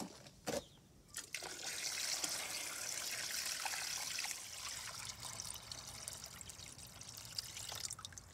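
Water poured in a steady stream from a plastic jug into an electric canning sterilizer packed with glass jars, starting about a second in and easing off toward the end. A short knock comes just before the pour.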